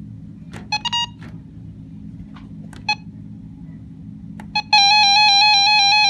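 Radio Shack 12-262 weather alert radio's buttons: a few clicks and two short beeps. Then, near the end, a loud steady electronic alert tone sounds at one pitch, over a low hum.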